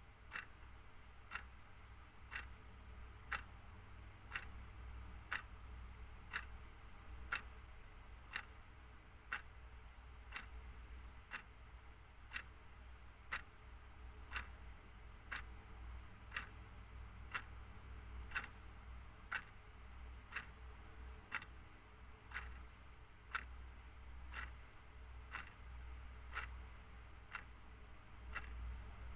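Clock ticking steadily, about one tick a second, over a faint low hum.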